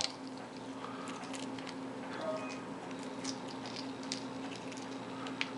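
Faint, scattered small clicks and crackles of a hard-boiled egg's shell being slowly pulled off by hand, over a steady low hum.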